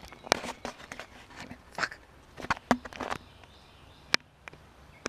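Scattered sharp clicks and taps of fingers pressing the buttons and handling the casing of a handheld camera, as he fumbles with the wrong button. A muttered curse comes about a second and a half in.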